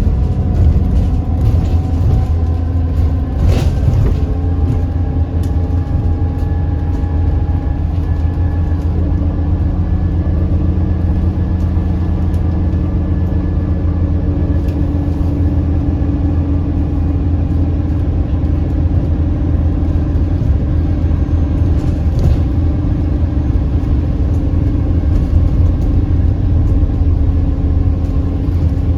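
Alexander Dennis Enviro 400MMC double-decker bus under way: a heavy low rumble with several steady whining tones from the axles and turbo, drifting a little in pitch with speed, and a couple of brief knocks. The loud axle and turbo whine are, to the uploader, signs of a bus starting to sound worn out.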